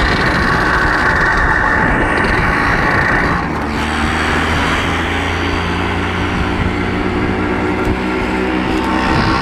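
Small motorcycle riding along at speed, with wind rushing over the microphone and the engine running underneath. About three and a half seconds in, the wind noise eases and a steady engine drone comes through for several seconds before the rush returns.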